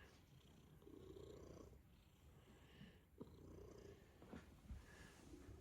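A domestic cat purring faintly while being petted, the purr swelling and fading with each breath.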